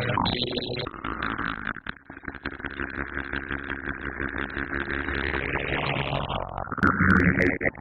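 Fart sound effects: long, sputtering, buzzy farts with a rapid flutter, one running into the next, with a brief break about two seconds in and a louder, higher-pitched one near the end.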